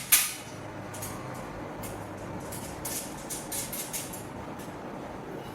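A sharp knock just after the start, then light scattered clicks and rustling of sink parts being handled, over a steady low hum.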